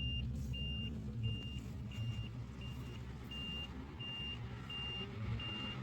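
An electronic beeper sounding a single high tone over and over, about one and a half beeps a second, over a steady low rumble.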